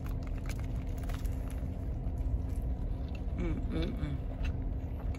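Chewing a mouthful of burger, with small crunches and clicks, over the car's steady low rumble. A short hummed 'mm' comes a little past three seconds in.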